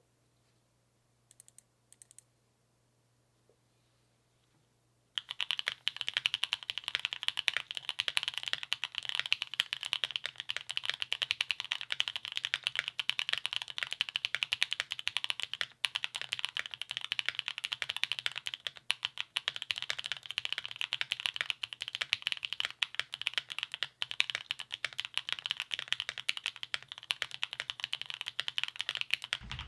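Mechanical keyboard with lubed Gateron Cream Soda linear switches on an FR4 plate being typed on fast and continuously. A couple of faint clicks in the first seconds, then steady rapid typing from about five seconds in.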